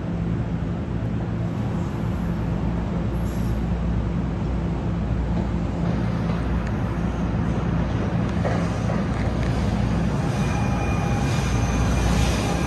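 NJ Transit Arrow III electric multiple-unit train approaching along the platform, a steady low rumble and hum that grows a little louder. About ten seconds in, thin high-pitched tones join it.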